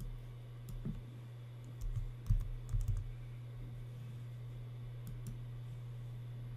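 Computer keyboard keystrokes and mouse clicks, with a cluster of taps in the first three seconds and two more around five seconds in, over a steady low electrical hum.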